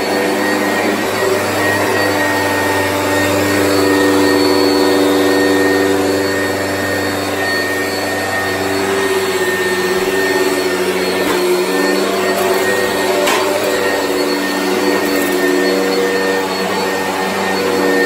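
Oreck upright vacuum cleaner running steadily as it is pushed over carpet: a continuous motor hum with several held steady tones.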